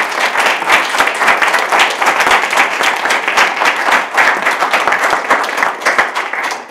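Applause: many hands clapping in a dense, even crackle that tails off near the end.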